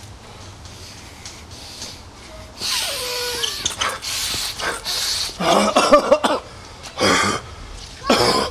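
A man sniffing hard through his nose in several loud bursts, with a few drawn-out vocal noises between them.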